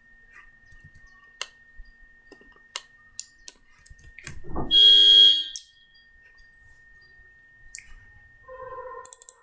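Computer mouse clicking now and then. About halfway through comes a loud electronic buzzing beep lasting about a second, with a faint steady high whine underneath throughout.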